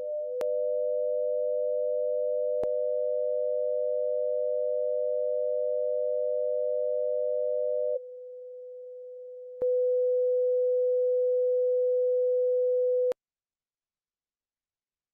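Synthetic sine tones from the BeeOne binaural tone generator: a steady 500 Hz tone paired with one 100 Hz above it, forming a binaural tone. About eight seconds in the higher tone drops out and the sound goes quieter, then a single steady 500 Hz tone plays until it cuts off suddenly about thirteen seconds in.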